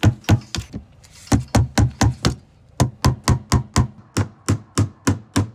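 Hammer driving galvanized finishing nails by hand into a wooden tongue-and-groove soffit board, a quick run of sharp blows about four a second, broken by short pauses. The board is not yet tight against the blocking behind it, so it gives a little under the blows.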